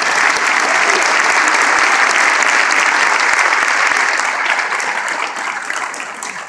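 Audience applauding, with one pair of hands clapping close by; the applause fades gradually toward the end.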